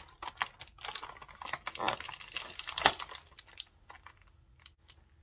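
Paper and plastic handling: a cardboard advent calendar door pushed open and a small clear plastic packet pulled out, crinkling with many light clicks for the first three and a half seconds, then only a few scattered clicks.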